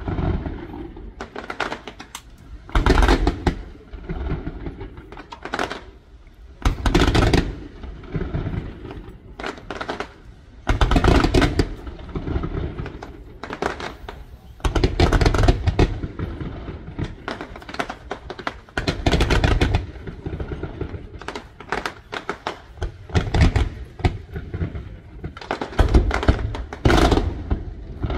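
Aerial firework shells bursting, with deep booms every few seconds and bursts of rapid crackling between them.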